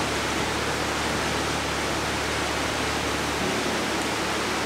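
Steady rushing of water from small falls spilling over rock into a pool.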